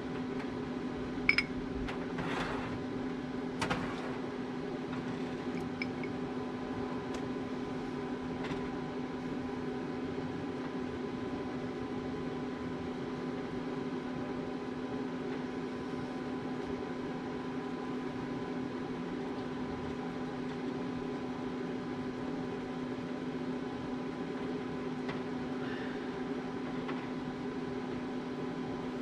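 A steady mechanical hum with a constant low tone runs throughout. Over it, in the first few seconds, come a few light clinks of a basting brush against the smoker's metal rack, two of them louder.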